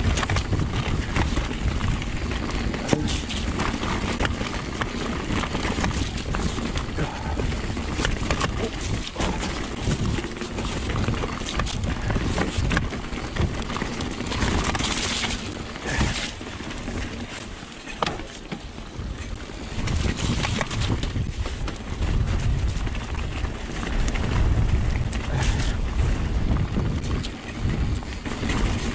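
Giant Trance full-suspension mountain bike descending fast on a wet, rocky trail: wind rumbling on the camera microphone, tyres hissing and splashing through standing water, and frequent clicks and clatters from the bike over rocks.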